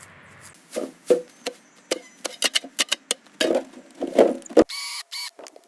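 A quick, irregular series of knocks and taps, like work sounds from a sped-up build. It breaks off suddenly near the end and gives way to short, brighter clicking bursts.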